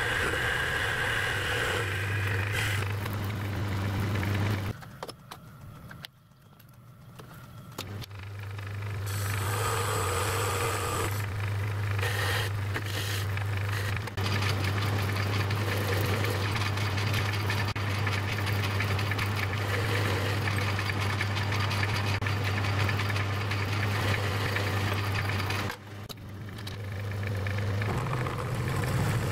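Metal lathe running with a steady motor hum while a small metal plug is turned, with a light cutting rasp from the tool. The lathe stops about five seconds in, starts again about three seconds later, and stops briefly again near the end.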